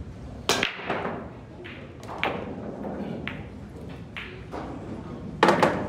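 Sharp clacks of pool balls and cues striking in a billiard hall: a loud one about half a second in, a few lighter ones spread out after it, and a loud quick cluster of clacks near the end, over low chatter.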